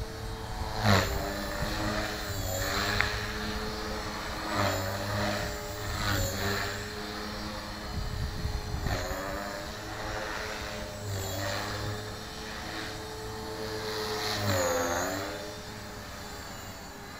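Tarot 450 Pro V2 electric RC helicopter in flight, its motor and rotor whine dipping in pitch and recovering several times as the rotor is loaded, the deepest dip near the end.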